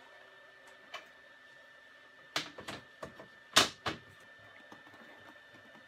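Hard plastic clicks and knocks from hands handling parts on top of a 3D printer: a light tap about a second in, a cluster a little past two seconds and the loudest knock about three and a half seconds in. A faint steady high tone runs underneath.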